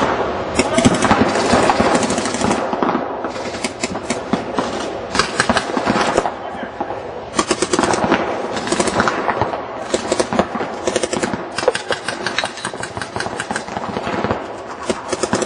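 Paintball markers firing reballs in rapid, overlapping strings of sharp pops, several guns shooting at once.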